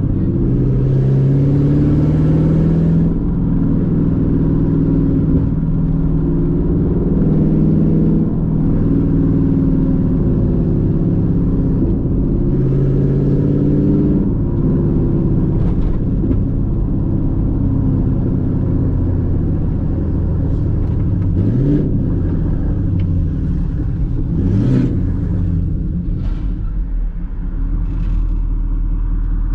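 Chevrolet Camaro SS's 6.2-litre V8 running under load while driven, its pitch climbing and stepping down several times as it goes through the gears, with a few quick rev rises and falls later on.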